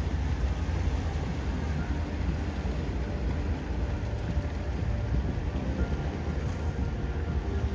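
A steady low rumble with an even hiss of noise over it, unbroken throughout.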